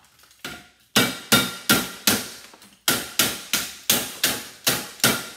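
Hammer blows on a CRT television's copper deflection yoke clamped in a steel bench vise, smashing off its ferrite core. A run of sharp strikes about three a second, each with a short ring, with a brief pause about halfway.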